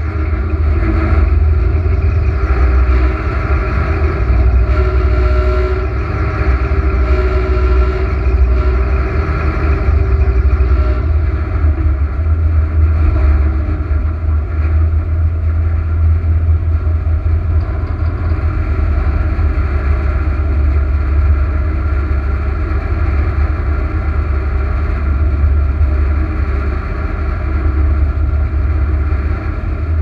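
Airboat engine and propeller running steadily, with wind buffeting the microphone.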